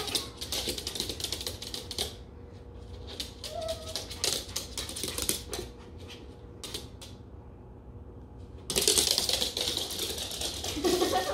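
Morkie puppy's claws clicking and skittering rapidly on a hardwood floor as she runs about, in several spells with short pauses between, the loudest spell near the end.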